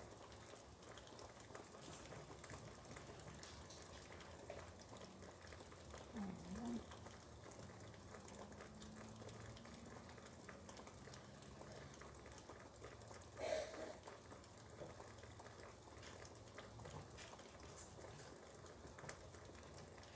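Faint, steady patter of rain heard through an open window. A short sound comes about six seconds in, and a brief louder one about thirteen seconds in.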